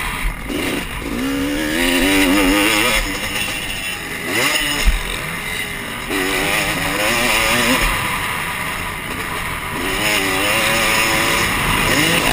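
Motocross dirt bike engine heard from the rider's helmet, revving up and down as it is ridden round a dirt track, its pitch rising and falling with the throttle and gear changes. There is one sharp knock about five seconds in.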